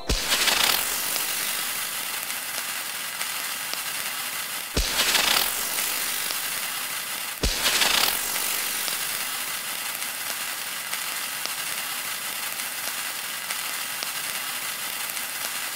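Sound effect from a cursive-alphabet learning app: a steady, fine crackling rattle. It is broken by a sharp pop and a short whoosh at the start, about 5 seconds in, and about 7.5 seconds in.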